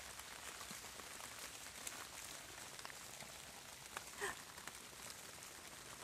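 Steady light rain falling on wet leaf litter, with scattered faint drop ticks. A brief, faint pitched sound comes about four seconds in.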